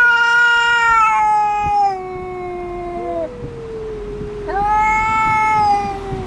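Two cats yowling at each other in a quarrel, in long, drawn-out calls that overlap, one voice higher than the other, each call sliding slowly down in pitch. The loudest pair fades out about three seconds in, and a second pair of yowls starts just after.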